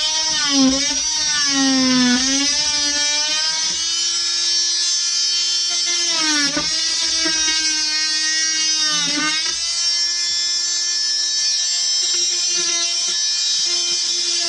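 DeWalt DWE315 oscillating multi-tool buzzing as its wood-with-nails blade plunge-cuts through wood. The pitch sags and recovers as the blade bites. It wavers during the first few seconds, then holds steadier, with brief dips twice.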